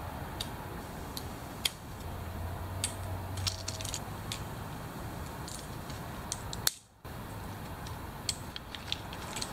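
Small hand cutters snipping the spot-welded nickel strips between the cylindrical cells of a hoverboard battery pack: scattered sharp clicks and snaps, over a steady low background hum. The sound cuts out for a moment about seven seconds in.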